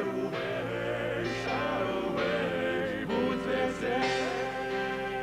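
Pop ballad sung by a male duo over a band: a singing voice with held, sliding notes over steady sustained accompaniment.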